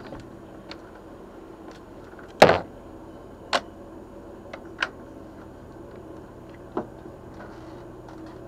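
A boat's engine running with a steady low drone, broken by four sharp knocks, the loudest about two and a half seconds in.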